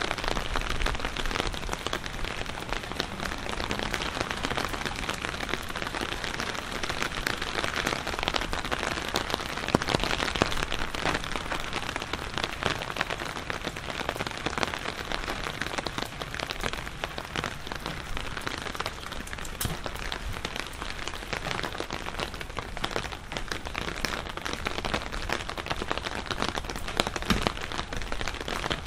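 Steady rain falling, with many close, sharp drop hits throughout.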